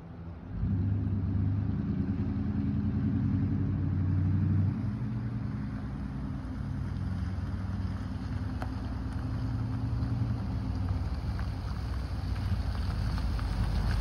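1998 GMC Sierra K1500 V8 running through a 2.5-inch mandrel-bent dual exhaust with Flowmaster Super 10 mufflers: a low, deep exhaust note that jumps up sharply about half a second in, eases a little near five seconds, then grows louder toward the end.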